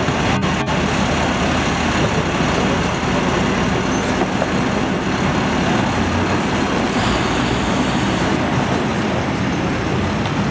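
Box truck's engine running as the truck pulls forward and out from the curb, over steady city street traffic noise.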